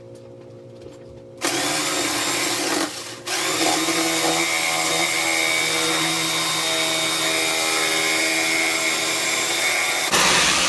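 Electric power saw cutting through a wooden board. It starts about a second and a half in, breaks off briefly, then runs steadily with a whine until it stops with a brief louder burst near the end, as the cut is finished.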